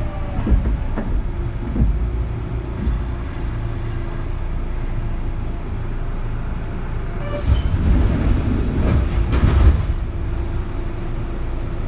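Kintetsu 3200 series electric train running, heard from inside its motor car: low wheel-and-rail rumble under a steady hum from the early Mitsubishi GTO-VVVF traction equipment. There are a few rail-joint clicks near the start, and the rumble and clatter get louder for a couple of seconds past the middle.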